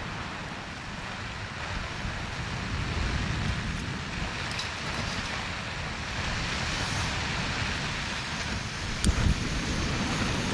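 Steady hiss of rain and wind around a tarp shelter, with wind rumbling on the microphone. Near the end come a few sharp metal clicks as a camping cookpot's handle is handled on the stove.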